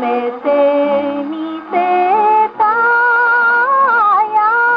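A 78 rpm shellac record playing on a Victor Victrola acoustic gramophone: a 1930s Japanese popular song for female voice, seven-hole shakuhachi and orchestra. The melody moves through short notes, then holds a long wavering note that dips and comes back near the end.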